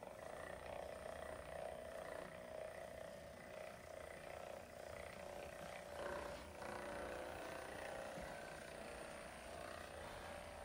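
Hypervolt percussive massage gun running against the patient's back, a steady buzzing hum that swells briefly about six seconds in.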